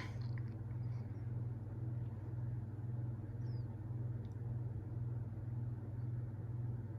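Litex 52-inch Spotlight ceiling fan running on medium speed: a steady low motor hum that swells and fades about one and a half times a second. A brief click right at the start.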